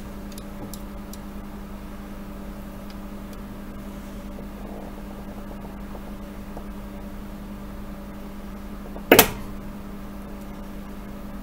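Steady low electrical hum of bench equipment, with one sharp knock about nine seconds in.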